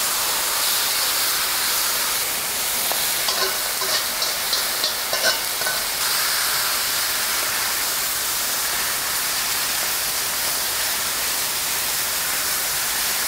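Pork neck and kimchi sizzling as they fry on a cast-iron sotdukkeong (cauldron-lid griddle), a steady hiss. Metal tongs click and scrape against the pan several times a few seconds in as the meat and kimchi are stirred.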